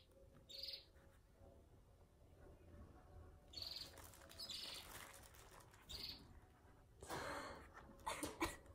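Near-silent room with a few faint, short, high chirps a second or more apart, and a brief rustle of plastic near the end as the plant in its plastic root bag is handled.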